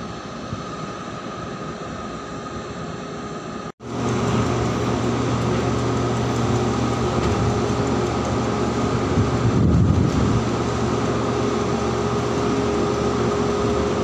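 Heavy diesel machinery on a floating crane running with a steady low drone and a few held tones. It drops out for an instant about four seconds in and comes back louder.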